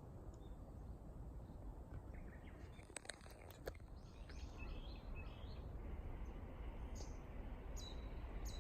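Faint outdoor background noise with a low rumble. Small birds chirp about two to five seconds in and again in repeated short calls near the end. A couple of sharp clicks come about three seconds in.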